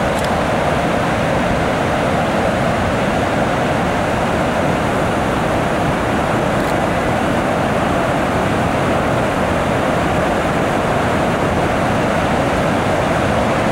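Floodwater pouring over a concrete dam's open spillway gates during a high flood release: a steady, even rushing noise.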